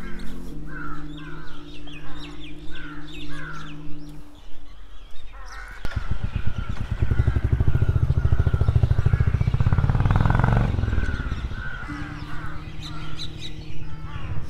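Birds calling over and over in short, falling calls. A loud, low rumble with a fast pulsing takes over for about five seconds in the middle.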